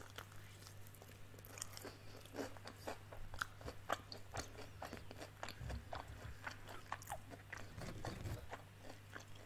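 Crunching and chewing of crispy breaded fried chicken: a bite into the crust, then many short crisp crunches as it is chewed, with a steady low hum underneath.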